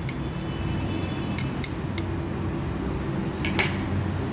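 A steady low background hum with a few light clicks and clinks as chopped coriander is tipped from a small glass bowl into a ceramic bowl. There are three taps in quick succession about one and a half to two seconds in, and a short rattle of clicks near the end.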